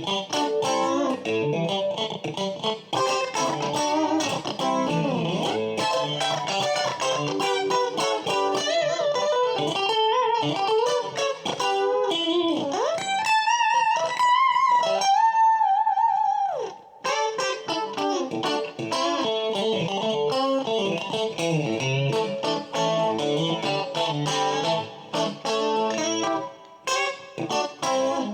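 Fender Player Stratocaster electric guitar played with a clean tone: a continuous run of picked single notes and chords. About halfway through, a note bends upward and a few notes are held with vibrato, then cut off suddenly before the picking resumes.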